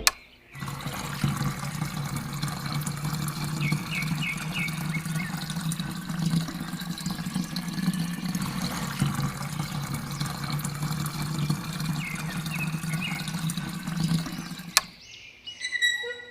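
Water pouring and trickling from a small DIY submersible pump model, over a steady low motor hum, with a few faint high chirps; it cuts off suddenly near the end.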